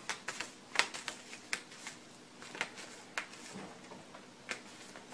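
A cat's paws and claws working at a small square pad on a hardwood floor: about a dozen sharp, irregularly spaced clicks and scratches.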